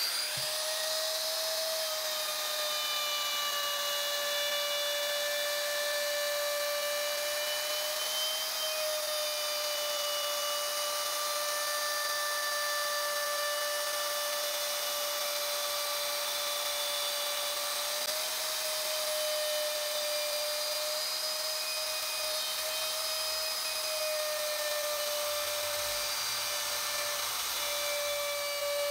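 Handheld electric router running at full speed with a steady high whine, its small bit cutting a shallow groove about 3 mm deep along a carving outline in wood. The pitch wavers slightly now and then as the cut loads the motor.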